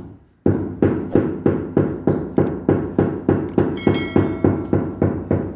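Steady hammering, about three blows a second, with a brief metallic ring about four seconds in.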